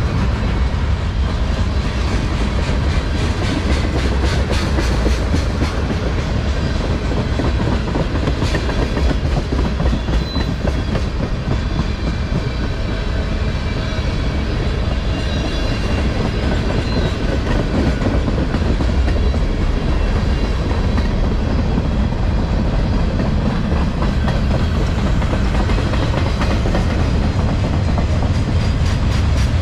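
Freight cars of a passing mixed freight train rolling by: a steady, loud rumble of steel wheels on rail, with repeated clicks as the wheels cross rail joints.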